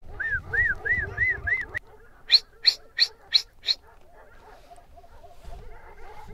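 A dog barking five times in quick succession, each bark sharp and loud. Before the barks comes a run of five short, high calls that rise and fall, at the same quick pace.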